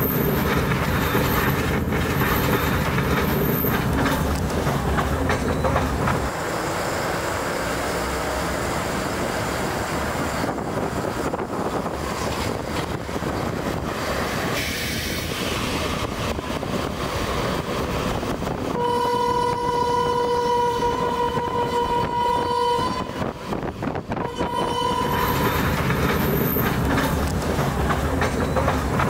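Passenger train running along the track with a steady rolling rumble of wheels on rails. About two-thirds of the way through, its horn sounds one long blast of about four seconds, followed a couple of seconds later by a shorter blast: a warning for a level crossing.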